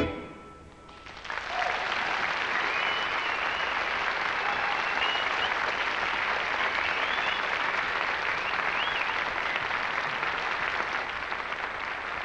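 Studio audience applauding at the end of a song, the clapping swelling in about a second after the last notes fade and then holding steady.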